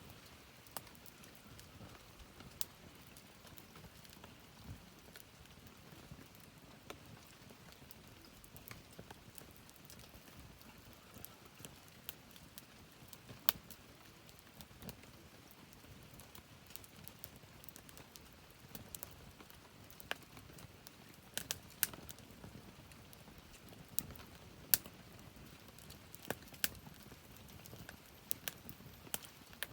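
Wood campfire crackling, with irregular sharp pops over a soft steady hiss; the pops grow more frequent and louder in the second half.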